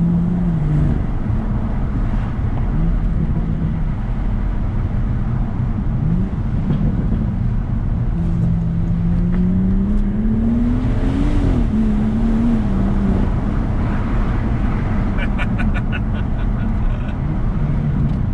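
BMW M240i's 3.0-litre turbocharged straight-six through a Quicksilver valved sport exhaust with the valves open, heard from inside the cabin on the move: the engine note rises and falls through the gears, with one long pull climbing to a peak about eleven seconds in and dropping at the upshift. Near the end a quick run of sharp exhaust crackles.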